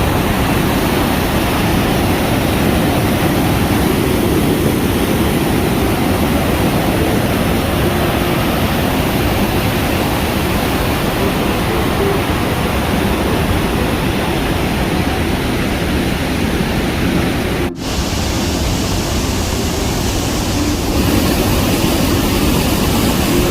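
Rhine Falls: a loud, steady rush of water pouring over the falls. Near the end it cuts out for a split second.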